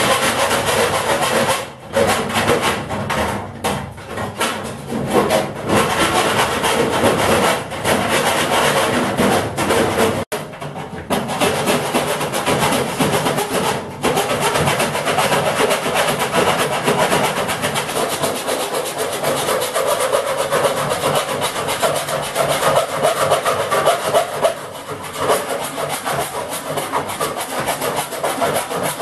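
Small die grinder with a thin friction cut-off disc slicing through the sheet steel of a filing cabinet: a loud, steady abrasive grinding noise that drops briefly a few times, where the disc lifts off the cut.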